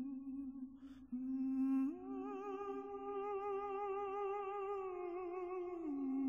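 Background music: a voice humming a slow wordless melody in long held notes with vibrato, stepping up in pitch about two seconds in and back down near the end.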